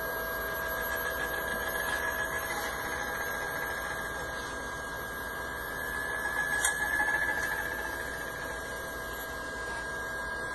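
AG Optical Systems DD150 direct-drive German equatorial mount slewing at high speed. Its direct-drive motors and drives give a steady electrical whine and hum that swells a little past the middle, with a single light click about two-thirds of the way through.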